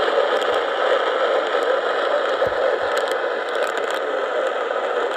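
Steady radio static hiss from a receiver, with a few faint crackles about three to four seconds in.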